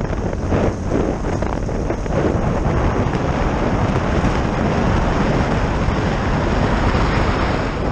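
Wind rushing over an action camera's microphone on a Honda Africa Twin parallel-twin adventure motorcycle riding along a gravel track, with the engine running under the rush.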